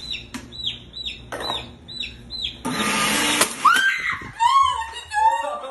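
A young chick peeping, short high falling peeps about two a second, then a blender motor running in one short burst of under a second about three seconds in. Laughter follows.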